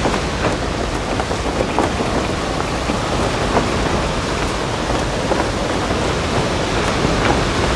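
Storm noise: steady heavy rain with wind rumbling underneath, and scattered sharp ticks of drops throughout.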